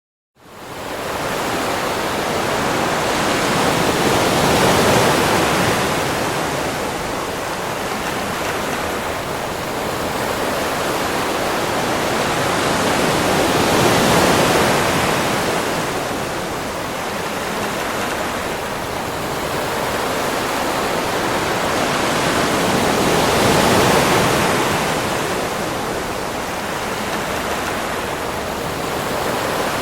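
Ocean surf: a steady wash of breaking waves that swells and eases roughly every ten seconds. It rises quickly out of silence about half a second in.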